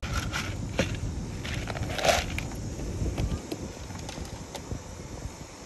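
A zebra feeding from a bucket at the car window makes scattered crunches and knocks, the loudest about two seconds in, over a low rumble that fades about three and a half seconds in.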